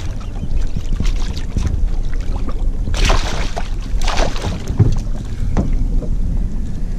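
A shark thrashing and splashing at the surface against a boat's hull while held for unhooking, with two louder splashes about three and four seconds in. Steady wind rumble on the microphone underneath.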